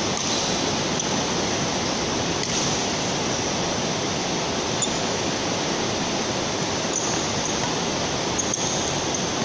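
Steady, loud rushing noise with no pitch, with a few faint racket strikes on the shuttlecock and short squeaks of shoes on the court during a badminton rally in the second half.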